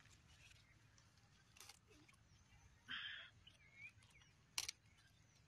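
Near silence: faint field ambience, with a brief rustle about three seconds in and a single sharp click near the end.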